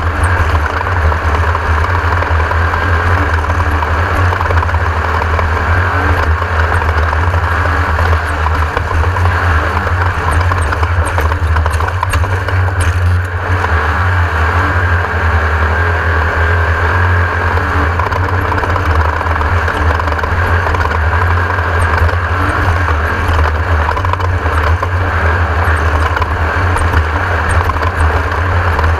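Class 1600 desert race car's air-cooled Volkswagen engine running hard and steady: a loud low drone under a constant rush of noise.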